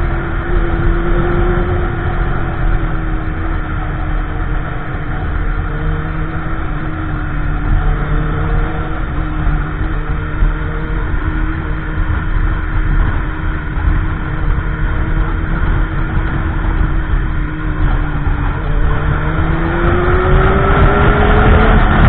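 Motorcycle engine running at a steady cruise over a heavy low rumble, its pitch rising about two seconds before the end as it accelerates.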